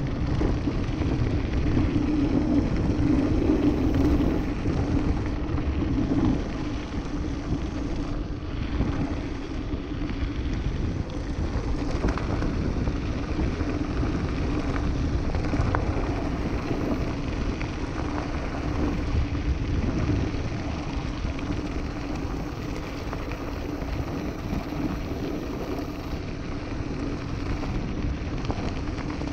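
Mountain bike riding over loose rock and gravel: a continuous rolling rumble from the tyres and bike, with a steady hum underneath and many small rattling knocks as it goes over stones.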